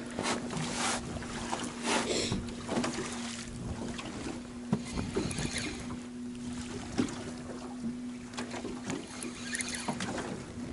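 Choppy river waves slapping and splashing against a small boat's hull in gusty wind, with a few sharper knocks, the sharpest nearly five and seven seconds in. A steady low hum runs underneath.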